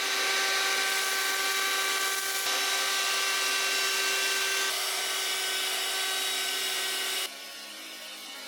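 Parkside PHSSA 20-Li C1 20 V cordless hand-held vacuum cleaner running: a steady high motor whine with hiss. The whine shifts slightly twice and cuts off about seven seconds in, leaving quieter music.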